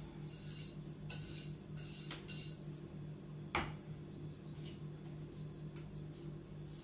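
Kitchen appliance's electronic beeps: one longer high beep followed by two short ones, just after a knock about three and a half seconds in, over a steady low hum.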